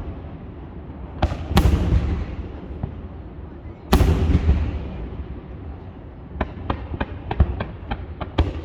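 Aerial fireworks shells bursting: two loud bangs about a second and a half in and another near four seconds, each followed by a long rolling tail. In the last two seconds comes a run of quicker, sharper cracks.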